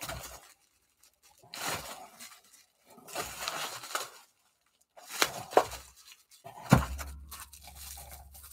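Bubble wrap and plastic packaging rustling and crinkling in short bursts as items in a box are handled, with a few sharp clicks, the loudest about two-thirds of the way in.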